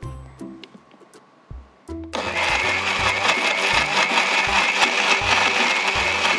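A few light clicks as the jug is handled. Then, about two seconds in, a countertop electric blender starts and runs steadily, blending chopped fruit, carrot and ice cubes into juice.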